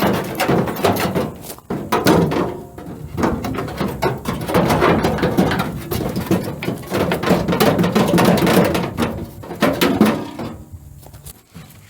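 Dense, irregular clicking and clattering, like hand-tool or metal parts work, dying away near the end.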